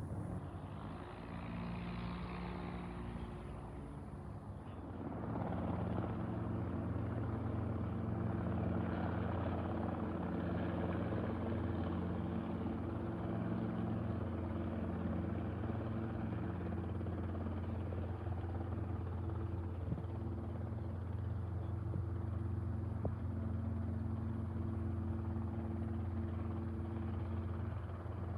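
Piston engine of a light propeller plane running with a steady drone, growing louder about five seconds in and then holding level.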